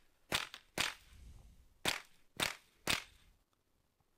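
Five rifle shots from a .22 rimfire mini rifle: two about half a second apart, a pause of about a second, then three more at the same pace.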